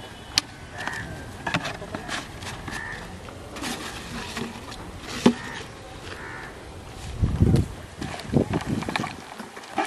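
Clicks and rustles of a plastic bottle and cloth bag being handled over a plastic bucket, with a few short bird calls and a heavy low thump about seven seconds in.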